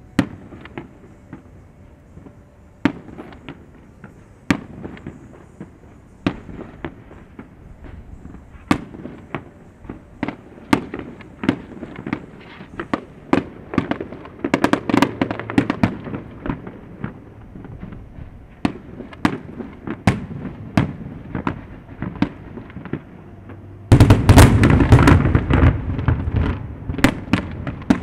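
Aerial fireworks shells bursting, single bangs a second or two apart at first, coming faster and faster. About 24 seconds in, a much louder, dense run of bangs with a heavy rumble begins and lasts to the end.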